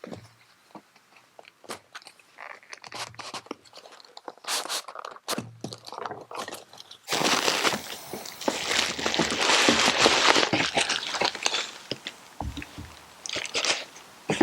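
Hands handling and unpacking small parts: scattered clicks and knocks, then a few seconds of loud crinkling of plastic packaging starting about halfway through.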